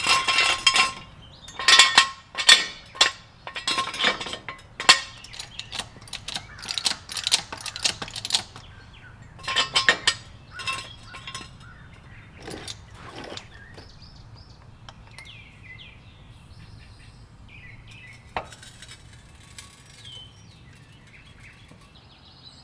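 Steel jack stand being set under a truck's axle, its ratcheting post pulled up: a long run of metallic clinks and clanks that thins out and stops about two-thirds of the way through, with one more knock near the end.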